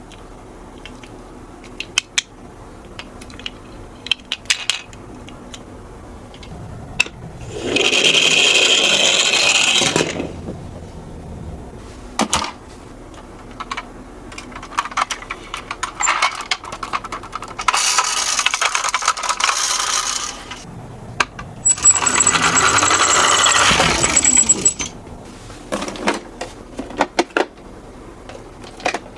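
Toy miniature cars rolling down a slope three times, each run a few seconds of small plastic wheels rattling along the track. Scattered clicks and clacks of the toys being handled and set down fall in between. A thin high steady tone sounds during the last run.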